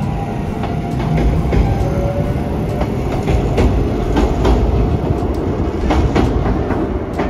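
Kintetsu electric commuter train passing close by, steel wheels clicking over rail joints above a steady loud rumble. The level-crossing bell's ringing fades out in the first moment.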